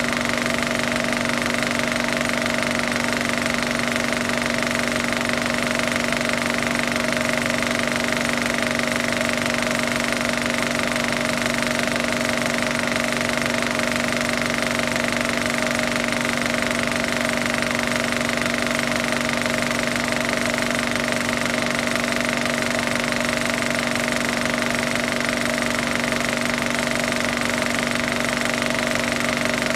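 Film projector running: a steady mechanical whir and clatter with a constant pitch.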